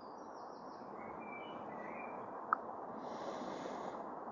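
Faint bird chirps over a steady outdoor background, with one sharp click a little past halfway from a hand working the rubber port cover on a portable power station, and a brief hiss near the end.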